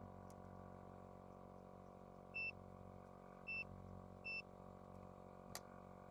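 Three short electronic beeps about a second apart from a digital clamp meter being set up to read current, over the faint steady hum of a 12 V air compressor running under load, with a single click near the end.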